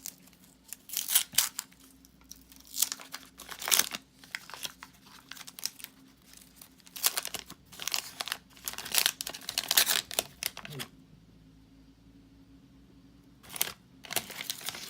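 Waxed-paper wrapper of a vintage trading-card wax pack being torn open and crinkled, in irregular crackling bursts, with a few seconds' lull near the end before more crinkling.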